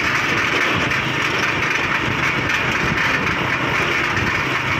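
Motorcycle tricycle (motorcycle with sidecar) engine running while riding, with a steady rush of wind and road noise.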